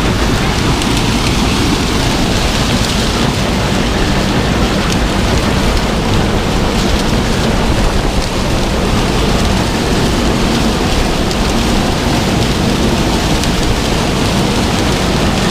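Combine harvester running steadily under load while harvesting corn: a loud, even mix of engine hum and rushing machine noise.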